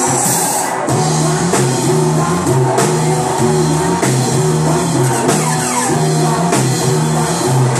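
Live band playing loud through a PA: an electric bass line under drums and keyboard, with singers on microphones.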